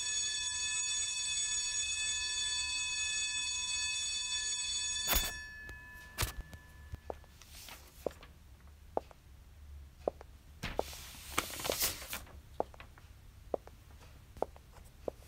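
A steady alarm tone with many overtones rings for about five seconds and cuts off with a sharp click. It is followed by scattered light clicks and a few short bursts of noise.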